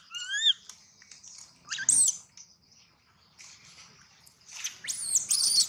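Baby long-tailed macaque crying in high-pitched squeals that arch up and down in pitch. A short run comes at the start, one about two seconds in, and the loudest pair near the end.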